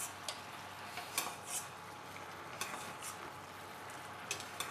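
A metal ladle clinks lightly against a stainless steel pot several times as boiling soy sauce is spooned over a whole chicken. Under the clinks is a steady low bubbling of the soy-sauce and rock-sugar liquid, which is reducing to a glaze.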